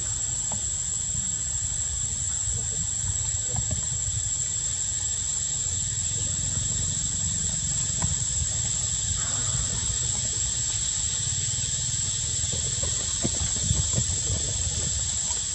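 Steady outdoor background noise: an unbroken high-pitched whine over hiss and a low rumble, with a few faint soft clicks now and then.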